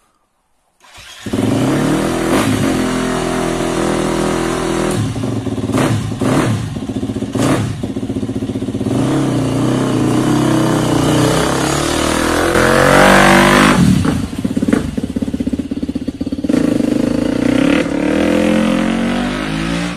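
KTM dirt bike engine cutting in loud about a second in, running with repeated throttle blips, then one long rising rev as the bike pulls away.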